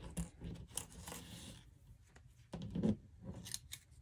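Paper and cardstock craft pieces being handled and slid on a work table: light taps, a rustling scrape about a second in, and a soft knock about three seconds in as a piece is set down.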